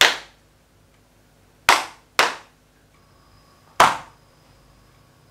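Sharp hand slaps of body percussion in a rhythm game: one slap, two more about half a second apart, then a fourth, each ringing briefly in the room.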